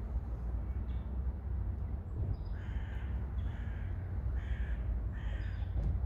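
A crow cawing four times in quick succession in the second half, harsh evenly spaced calls, over a steady low rumble.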